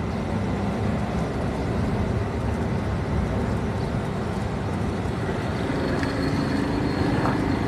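Steady low rumble of street traffic around an open-air food stall, over the sizzle of a batch of kachoris deep-frying in hot oil in a large iron karahi.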